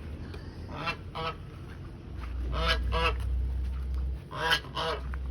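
Goose honking: short calls in pairs, about five in all.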